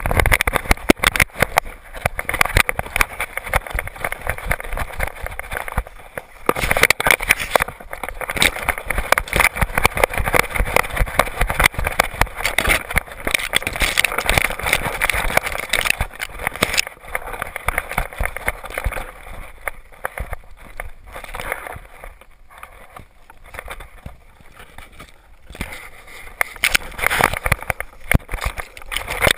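Loosely mounted GoPro knocking and rattling on a running whippet's back, a dense run of small knocks and scrapes, with grass brushing past the camera. It eases off for several seconds past the middle and picks up again near the end.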